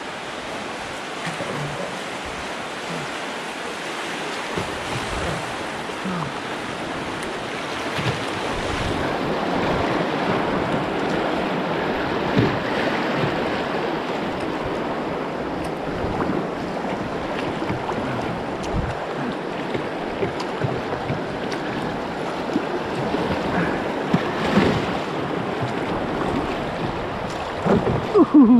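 Class 1–2 river rapids rushing steadily, loud but not rough, growing louder about eight seconds in.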